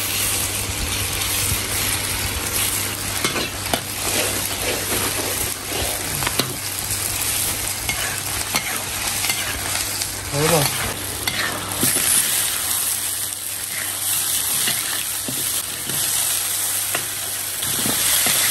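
Hot oil sizzling in a large iron wok over a wood fire, while a metal spatula repeatedly scrapes and stirs the food around the pan.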